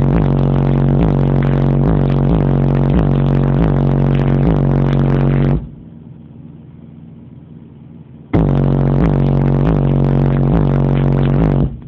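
Loud, bass-heavy music played through a car stereo with a Lightning Audio 10-inch subwoofer on a 400-watt amp, heard inside the car's cabin, with a steady beat about twice a second. It cuts out about halfway through, comes back about three seconds later, and cuts out again near the end.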